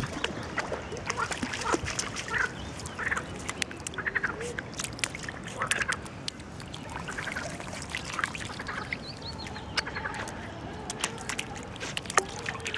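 A Shetland sheepdog wading and splashing in shallow lake water, with many short clicks, and repeated short animal calls over it every second or so.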